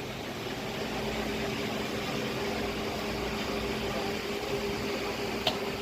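Steady background hum and hiss of machinery in a room, with a single faint click near the end.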